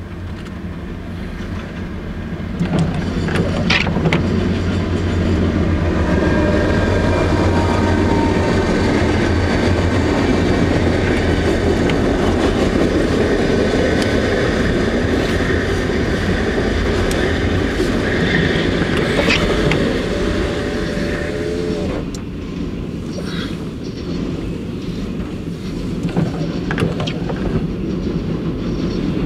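Diesel freight train passing close by. The locomotive's engine hum grows loud about three seconds in, and the freight cars follow, rolling past with steady wheel and rail clatter. The noise drops somewhat about 22 seconds in as the cars keep going by.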